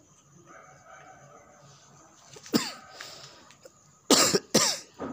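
Street dog coughing: one sharp hoarse cough about two and a half seconds in, then two more in quick succession near the end, each dropping in pitch.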